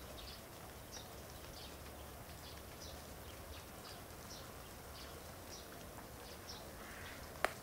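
Small bird chirping: short high notes repeated two or three times a second over a faint steady hiss, with one sharp click near the end.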